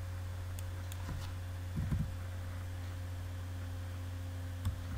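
Steady low electrical hum of the recording setup, with a few faint computer-key clicks as the file name is edited, and a soft low thump about two seconds in.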